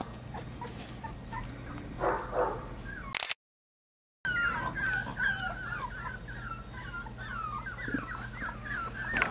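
Boxer puppies whimpering and yipping: a few short yips in the first three seconds, then, after the sound drops out for about a second, a rapid string of short, high, sliding whines.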